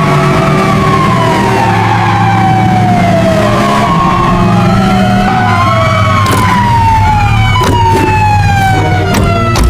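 Police siren sound effect wailing, its pitch sliding slowly down in about three long falls, over a steady low drone, with a few short sharp clicks in the second half.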